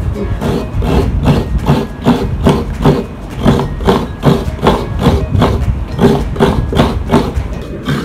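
Coconut flesh scraped against the serrated blade of a manual coconut grater stool (kudkuran), in steady scraping strokes about two a second. The grater's blade is dull.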